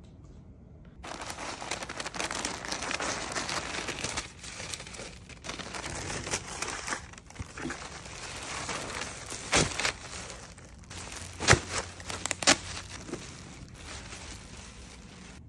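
Clear plastic garment bag and tissue paper crinkling and rustling as a shirt is unwrapped, starting about a second in. A few sharp, loud crackles stand out in the last third.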